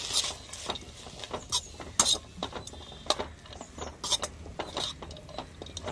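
Slotted metal spatula scraping and clinking irregularly against a kadai while stirring grated coconut into sautéed mint leaves, with the sharpest clinks about two seconds in and again around four seconds.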